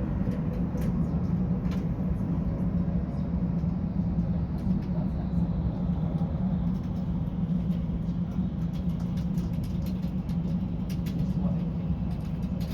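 A steady low mechanical drone. Through the middle a faint whine slowly falls in pitch, with a few small clicks scattered over it.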